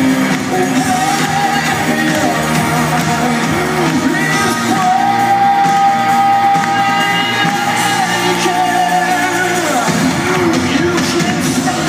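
Live band music with a lead singer, played over an arena sound system and heard from the crowd. The singer holds one long note for several seconds near the middle.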